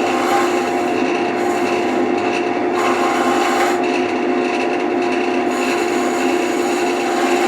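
Wood lathe running with a steady motor hum while sandpaper is held against the spinning wood, a continuous scraping rub that swells and eases as the paper moves.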